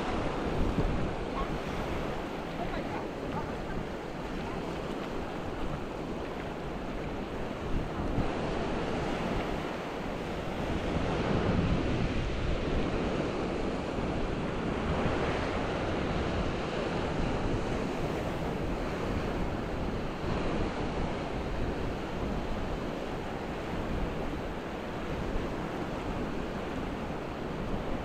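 Ocean waves breaking and washing up the beach in a steady rush that swells and eases, with wind buffeting the microphone.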